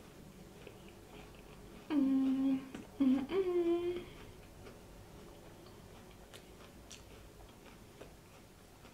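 A woman's closed-mouth hum of enjoyment, 'mmm', while chewing a mouthful of Fruity Pebbles crispy rice bar: two short hums about two and three seconds in, the second rising in pitch, with faint chewing clicks around them.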